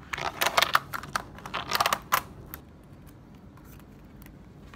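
A paper report in a black plastic comb binding being handled: a quick run of crisp clicks and paper rustles for about two and a half seconds as the comb spine and pages are worked, then only faint handling.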